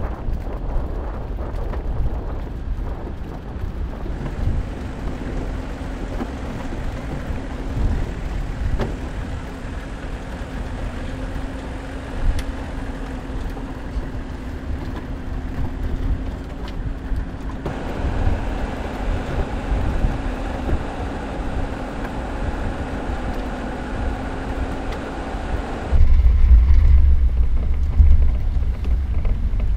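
Mercedes-Maybach G 650 Landaulet's twin-turbo V12 running at a steady speed while the car drives on a gravel track: a steady drone over a low rumble of engine and tyres. Near the end the sound turns to a louder, deeper rumble.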